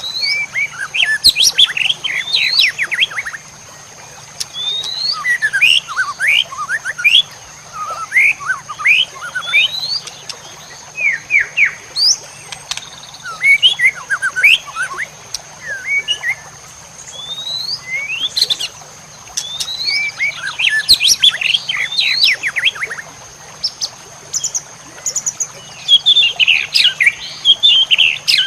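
White-rumped shama (murai batu) singing in short, loud phrases of rising whistles and fast chirp runs, with brief pauses between them. A faint steady high-pitched whine runs underneath.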